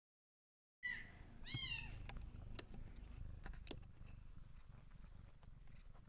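Kittens mewing: after nearly a second of dead silence, one short high meow that rises and falls about a second and a half in, with a few light clicks over a faint low rumble.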